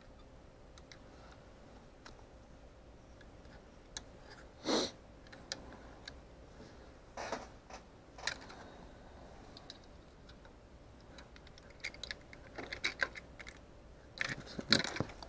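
Clear plastic parts of a Playz V8 model engine kit being handled: scattered light clicks, taps and scrapes of plastic, with a busier run of clicking near the end, the loudest just before it stops.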